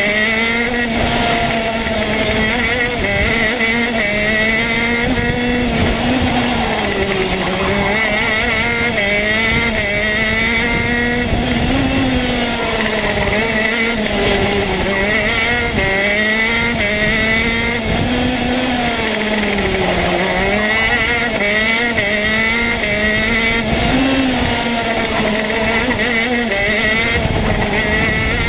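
Two-stroke TM kart engine heard onboard at racing speed. Its pitch climbs steadily on the straights, then drops sharply every few seconds as the kart brakes into each corner, and climbs again on the way out.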